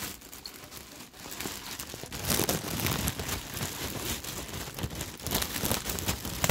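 Clear plastic poly bag crinkling and rustling as a nylon bag is handled and pulled out of it, in an irregular run of crackles that grows louder about two seconds in.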